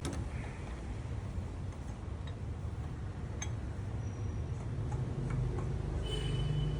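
A few light metallic clicks from the wheel nuts and lug wrench as the loosened nuts are taken off, over a steady low rumble.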